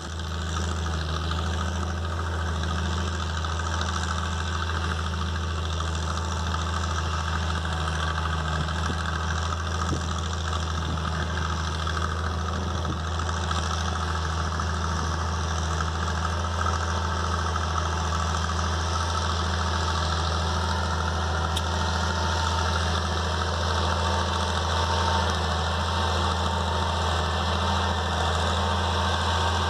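Massey Ferguson 296 tractor's diesel engine running steadily with a deep rumble, holding an even speed throughout.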